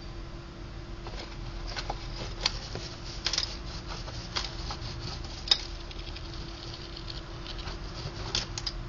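Pet gerbil's small, irregular clicks and scratches as it nibbles and scrabbles at a piece of orange, the sharpest click about halfway through, over a faint steady hum.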